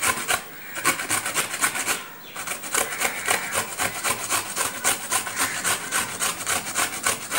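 Bottle gourd being grated on a flat stainless steel hand grater: quick, even scraping strokes, several a second, with a short pause about two seconds in.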